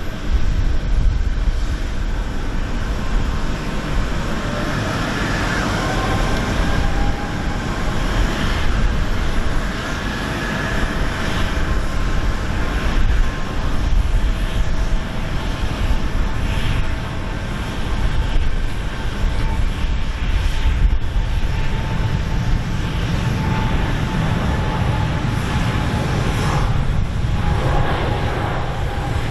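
Jet engines of a Boeing 777-300ER, its GE90 turbofans, running: a steady low rumble with whining tones that drift slowly in pitch, the rumble growing heavier near the end.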